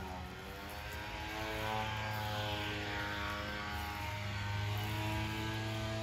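A propeller airplane flying over, a steady engine drone whose pitch slides as it passes and which grows louder about a second and a half in.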